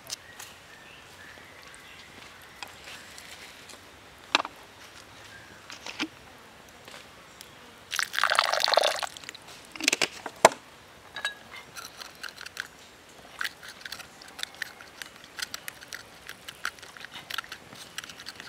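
Liquid poured briefly into a stone mortar of chopped green onions, a splashy pour lasting about a second, then wooden chopsticks stirring and clicking against the stone in quick, irregular taps.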